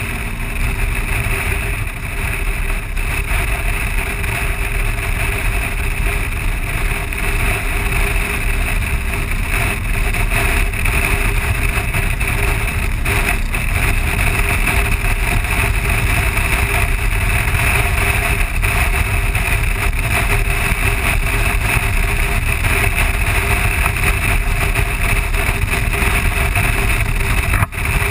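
BMW R1200 flat-twin motorcycle ridden at road speed: steady wind noise on the camera's microphone over the engine's running drone, with a brief dip near the end.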